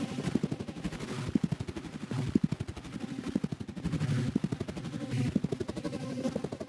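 Electronic film score made of a fast stuttering rattle of low pulses, many per second, that swells and eases every couple of seconds.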